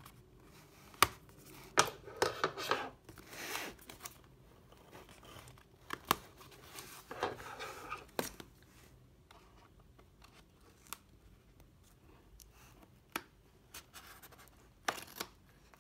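Tape seals on a cardboard box being cut through. Scattered sharp clicks and two scraping, tearing stretches of about a second each.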